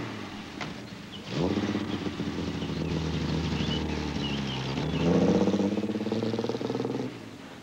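A car engine accelerating, its pitch climbing about a second and a half in and again about five seconds in, then cutting off abruptly near the end.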